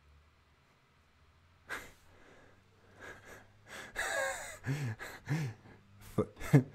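A man laughing softly to himself. A sharp breath comes about two seconds in, then a breathy laugh and a few short voiced chuckles through the second half.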